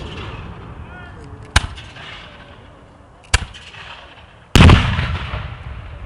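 Black-powder gunfire: two sharp musket shots, then a much louder cannon boom about four and a half seconds in that rolls off in a long low rumble.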